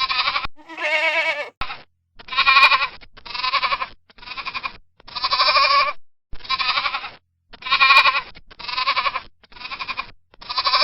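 Goats bleating: about ten quavering bleats one after another, a lower-pitched one near the start.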